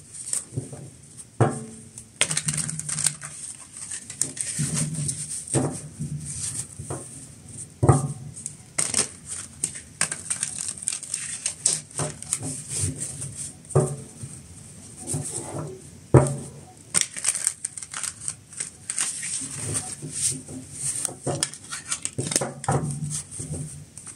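A deck of tarot cards being shuffled by hand: irregular riffling and slapping of card against card, with sharp clicks and soft rustles, some louder knocks now and then.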